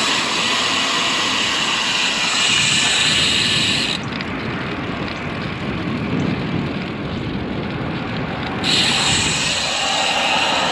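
Steady rush of wind over the microphone mixed with tyre noise from a Cervélo Caledonia road bike rolling on a grooved concrete road. From about four seconds in until near nine seconds the hiss turns duller, then comes back bright.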